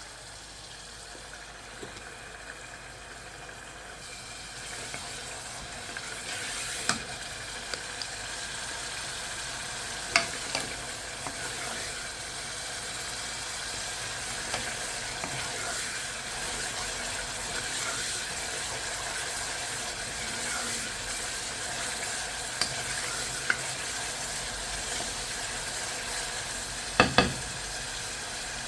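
Spiced onion and green chilli masala with a little water, sizzling and simmering in a pan as a steady hiss that grows a little louder a few seconds in. A few sharp knocks break through, two in quick succession near the end.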